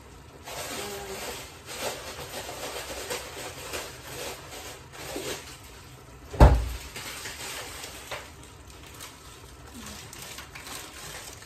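Faint crackling of curry cooking in a steel saucepan on a gas burner, with one sharp dull thump about six seconds in and a plastic bag rustling near the end.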